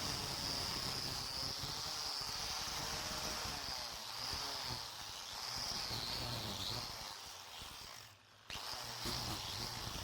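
Electric power tool running steadily with a high whine whose pitch wavers a little, over a low hum. It drops out for a moment just after eight seconds in.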